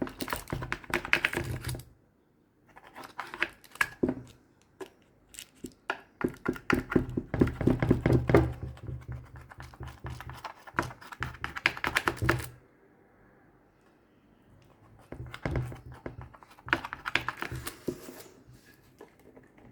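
Knife cutting through rolled, buttered layers of msemen dough: quick runs of clicks and taps in three bursts, with short quiet pauses between.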